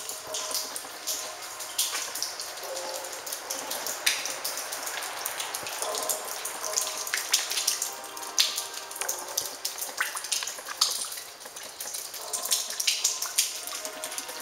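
Background video-game soundtrack music with faint held tones, and scattered sharp drip-like clicks and taps throughout.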